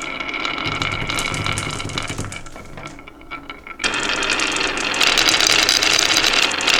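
Marbles rolling and clattering along a toy marble-run track, a dense rattle of small clicks. It dips for a moment, then comes back louder from about four seconds in.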